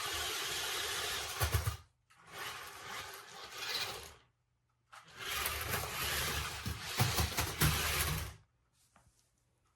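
Toy RC stunt car's electric drive motors and gearboxes whirring in three runs of two to three seconds each, stopping briefly between them, with low knocks as it drives and spins.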